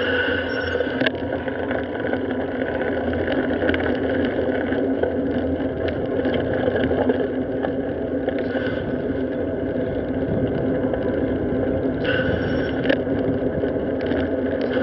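Steady road and wind noise from a camera riding on a moving bicycle. A high-pitched squeal cuts off about a second in and comes back briefly near the end.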